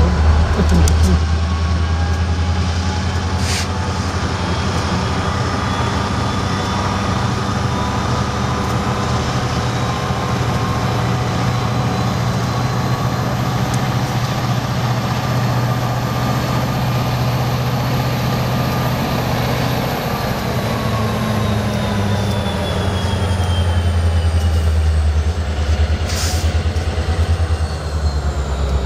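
Diesel engine of a Union Pacific four-axle freight locomotive running with a deep, steady rumble, which grows louder for a few seconds near the end.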